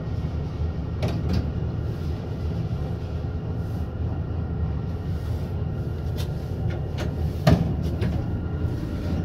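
1995 KONE inclined traction elevator car travelling, a steady low rumble with scattered clicks and knocks, the loudest about seven and a half seconds in.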